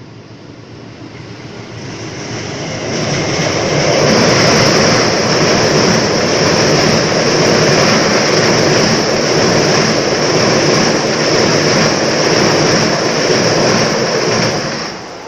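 Train passing at speed: the noise of its wheels on the rails swells over the first four seconds, stays loud for about ten seconds with a steady high hiss over a low rumble, then falls away near the end.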